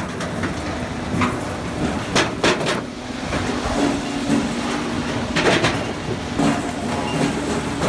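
Firewood processor running with a steady machine hum, broken by a series of sharp wooden clunks and knocks as logs are fed, cut and split.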